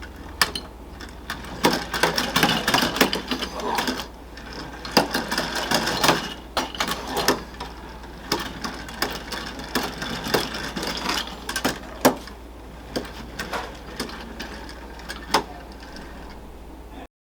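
Marx wind-up tin litho donkey cart toy working: its clockwork and tin parts clatter with a dense run of irregular sharp clicks, which cuts off abruptly near the end.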